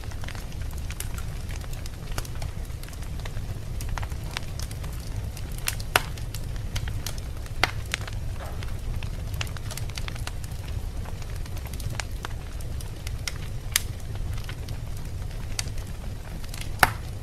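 Wood fire burning in a fireplace: a steady low rumble with scattered crackles and sharper pops, the loudest about six seconds in and just before the end.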